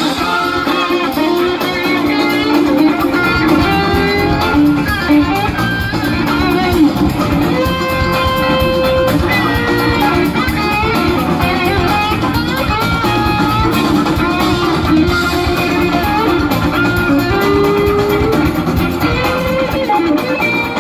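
Live rock band playing loud: two electric guitars trade sustained, bending lead lines over a steady drum beat.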